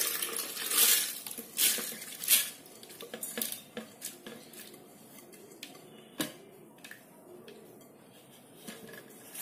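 Soaked lentils and grains being tipped into a plastic mixer-grinder jar, with a clattering pour over the first couple of seconds. Then come a few scattered knocks and clinks, the loudest about six seconds in.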